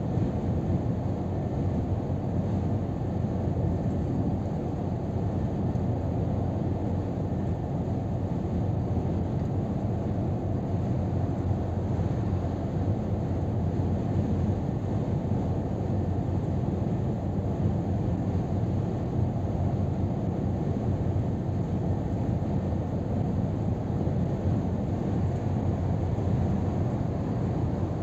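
Steady low rumble inside the cab of a Scania R500 truck cruising at motorway speed: engine, tyre and wind noise blended together, with no change in pitch or level.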